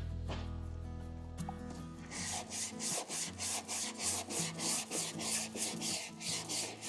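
Hand sanding of a guide-coated, filled body panel: sandpaper rubbed in regular back-and-forth strokes, about three a second, starting about two seconds in, to show up the panel's low and high spots. Guitar music plays underneath.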